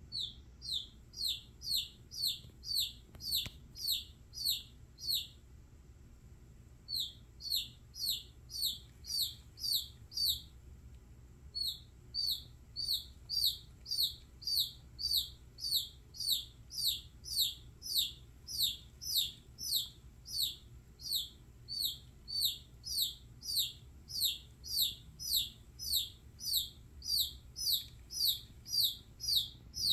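Baby chicken chick peeping over and over, about two loud peeps a second, each a short downward slur, with two brief pauses.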